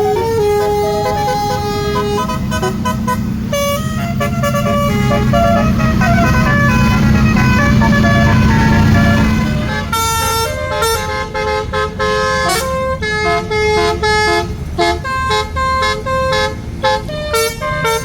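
Tour bus basuri telolet horn playing a melody, its notes stepping up and down in pitch, over the bus engine's low running. About halfway through the engine rumble drops away and the horn plays quick, short staccato notes.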